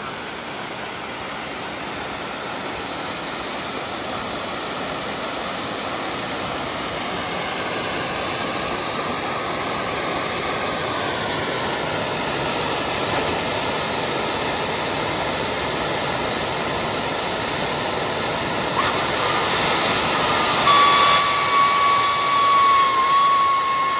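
Wind rushing on the microphone of a Yamaha XMAX 300 scooter riding at speed, with the scooter's running faintly underneath, slowly growing louder. A steady high whine comes in near the end.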